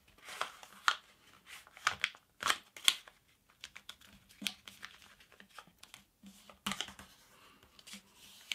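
A sheet of letter-size paper rustling and crinkling as it is folded and creased by hand, in short, scattered crackles. The crackles come in a cluster in the first three seconds and again about seven seconds in.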